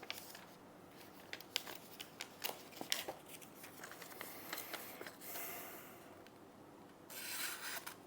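Victorinox RangerWood 55 pocketknife blade slicing through a sheet of paper, a string of crisp snicks with a longer swishing cut about five seconds in and another near the end. It is a paper-cutting sharpness test of the factory edge just stropped on leather, and the edge cuts cleanly.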